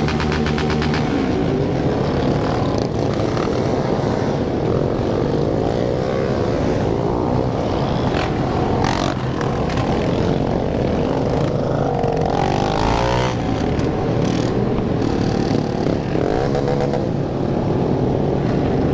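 A large group of motorcycles running and revving together, many engine notes overlapping and rising and falling in pitch, with a few sharp cracks about eight to nine seconds in.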